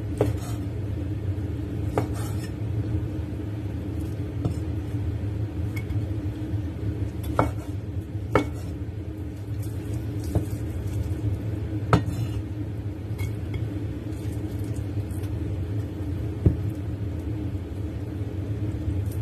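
A cleaver cutting a cooked, bony pork elbow on a wooden cutting board, giving a handful of sharp knocks at irregular intervals as the blade meets the board, over a steady low hum.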